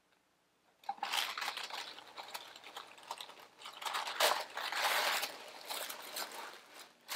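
Cardboard box lid opened and tissue paper inside rustling and crinkling as it is pulled back, starting about a second in.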